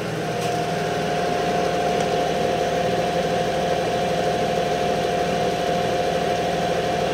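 Treadmill DC motor spinning the lap grinder's 100-pound, 24-inch steel disc at top speed, about 1130 RPM. It makes a steady running hum with a constant whine and turns smoothly.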